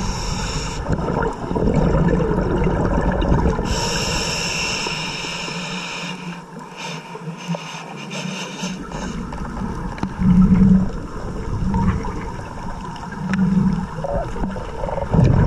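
Scuba regulator breathing underwater: a high hiss at the start and again about four seconds in, then low gurgling swells of exhaled bubbles about ten and thirteen seconds in, over a steady low rumble.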